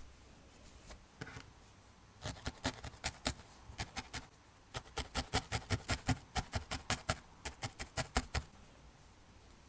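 Felting needle stabbing repeatedly through white core wool into a burlap backing: a fast run of pokes, about five or six a second, beginning about two seconds in with a short break midway.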